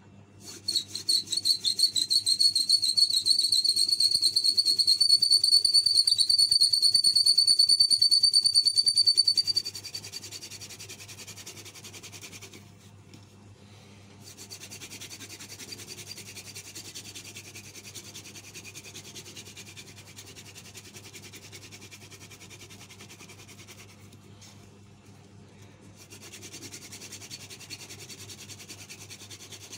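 Hand-drill spindle twirled between the palms on a small wooden fire board, the friction-fire drill. For the first nine seconds or so the spindle squeals loudly and high, pulsing with the strokes; then it settles into a quieter steady rasping grind that stops twice briefly.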